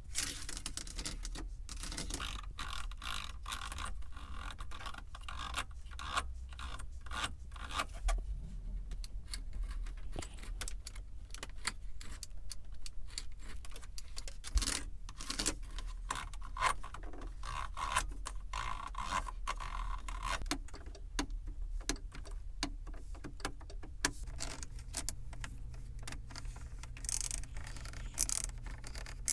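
Rapid, continuous tapping on a car's surfaces, close-miked for ASMR: many quick clicks a second, some with a brief ringing tone.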